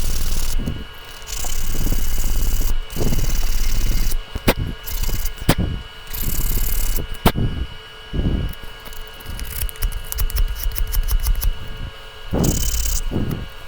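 Sanding a metal part clean in repeated passes of rough scraping noise, with three sharp clicks in the middle.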